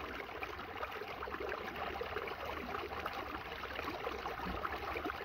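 Shallow creek trickling over rocks and fallen wood, a steady rush of running water.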